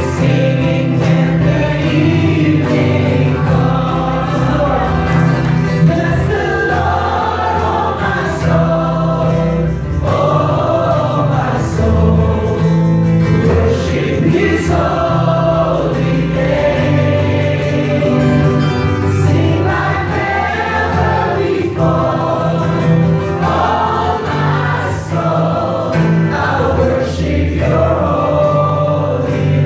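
Gospel worship song sung by many voices together over amplified instrumental accompaniment, with a steady bass line and beat.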